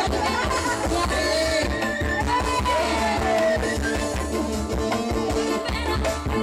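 Band music with a steady beat of drums and bass under a melody line that slides up and down in pitch.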